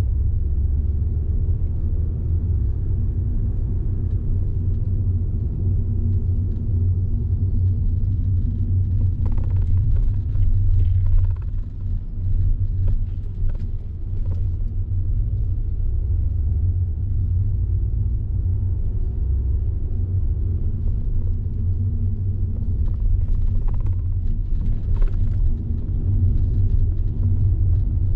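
A car being driven on the road: a steady low rumble of engine and tyre noise, with a brief dip in level about halfway through.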